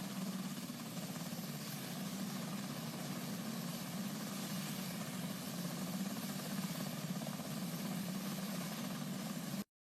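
UH-60 Black Hawk helicopter hovering: a steady engine and rotor drone with a hum low in pitch over a hiss. It cuts off abruptly near the end.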